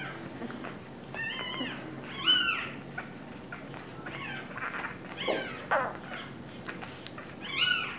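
Two-week-old English bulldog puppies giving about half a dozen short, high-pitched squeaks and whimpers, each arching up and down in pitch, the loudest a little after two seconds in.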